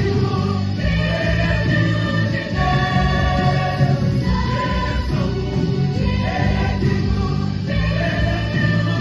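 Gospel song performed by a choir with instrumental accompaniment, the voices holding long chords that change about once a second.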